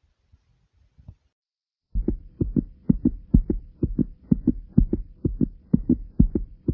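Human heartbeat, faint at first, then loud from about two seconds in as a fast, steady run of paired thumps (lub-dub), roughly two beats a second, over a faint steady hum.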